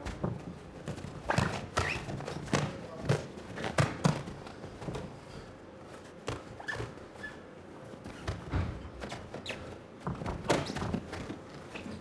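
Boxing gloves landing and boxers' shoes striking the ring canvas: irregular sharp thuds and slaps, bunched in quick flurries about a second in and again near the end, sparser during a clinch in the middle.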